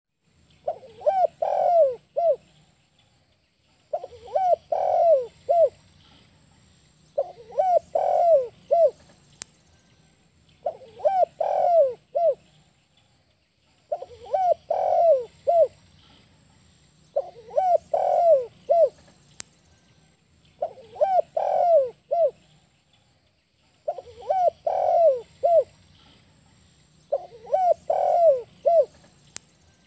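A spotted dove (tekukur) cooing its breeding-season song: nine phrases of several quick coo notes each, one phrase about every three and a half seconds.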